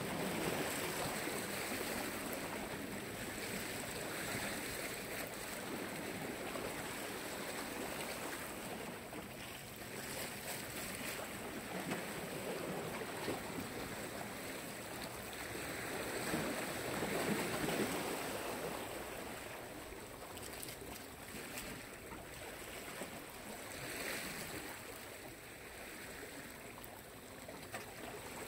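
Black Sea surf washing onto the shore, a steady rush that swells and eases in slow surges every few seconds, strongest in the middle.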